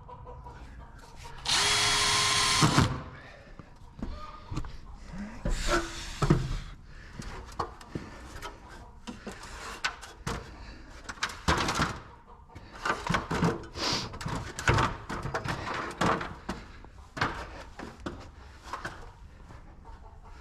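A power drill runs for about a second, drilling a starter hole in the center of the marked circle. It is followed by irregular knocks and clatter.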